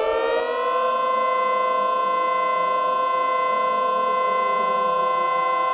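Civil defense siren rising in pitch through the first second, then holding a steady tone.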